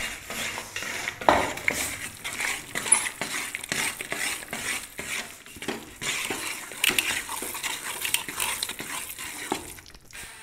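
Metal spoon stirring and scraping a thick, crumbly roasted wheat-flour and khoya mixture around an aluminium pot, with a steady run of irregular scrapes and clicks against the pot and one louder knock about a second in.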